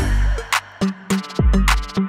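Background music: a hip-hop style drum-machine beat with sharp percussive hits and deep bass notes that slide downward.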